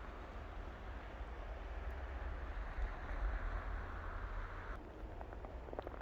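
Steady outdoor rumble and hiss, wind buffeting the microphone; the hiss cuts off suddenly about five seconds in.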